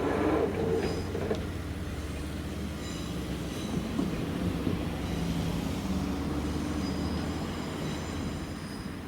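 Izukyu 2100-series passenger train rolling slowly past on its approach into a station, with a steady low rail rumble. Short, high wheel squeals come and go irregularly, and a louder pitched sound fades out right at the start.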